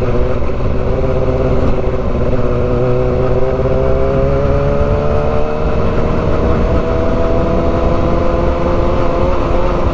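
Motorcycle engine running on the road, its pitch climbing slowly and steadily as it gathers a little speed, over a deep continuous rumble.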